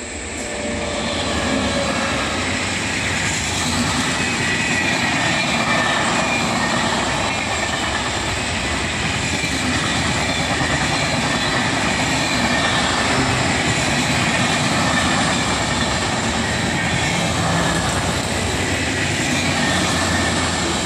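Express passenger train hauled by a WAP-7 electric locomotive passing at speed: steady wheel-on-rail noise of the coaches, building over the first two seconds and then holding.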